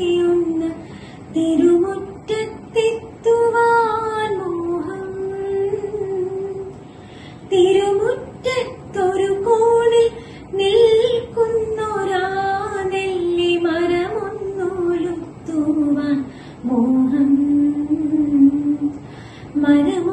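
A woman singing solo without accompaniment: a slow melody with gliding ornaments and long held notes, broken by short breaths.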